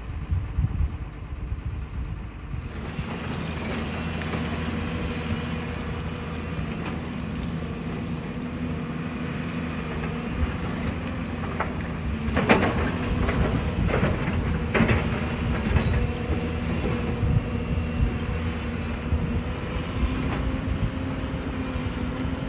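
Excavator's diesel engine running under load, growing louder about three seconds in, with a few sharp knocks of the bucket or tracks on rock in the second half.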